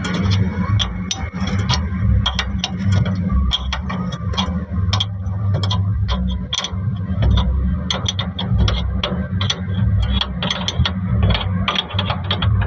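Irregular metallic clicks and ticks of tools working on a truck's wheel nuts, over the steady low hum of an engine running.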